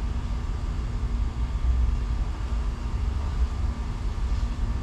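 Steady low rumbling background noise with a faint steady hum.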